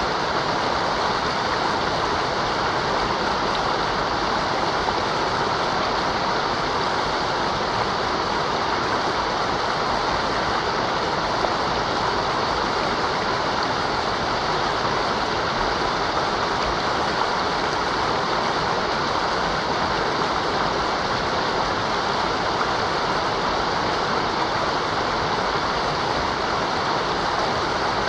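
Mountain river water rushing over rocks, a steady, unbroken sound.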